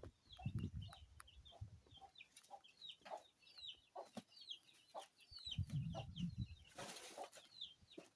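Chickens calling, a steady run of short, high, falling peeps and clucks, over two stretches of low rumble and a brief rustling hiss near the end.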